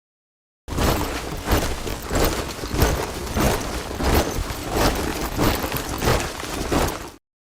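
Soldiers marching in step, their boots striking the ground together in a steady beat of about three steps every two seconds. It starts under a second in and cuts off suddenly shortly before the end.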